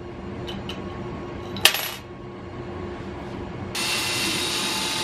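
A sharp clink of metal hardware on a glass tabletop about a second and a half in. About four seconds in, a cordless drill starts and runs steadily.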